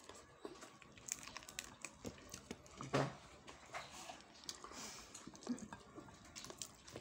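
A child eating by hand: chewing and mouth smacks, with many small clicks and crinkles of fingers working the rice and fried chicken. One louder knock comes about three seconds in.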